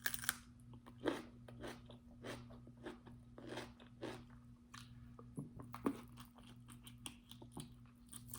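A crunchy bite of cucumber, then close-up chewing of cucumber, sausage and rice: a string of short, irregular crunches and wet mouth clicks. The bite at the start is the loudest sound. A faint steady hum lies underneath.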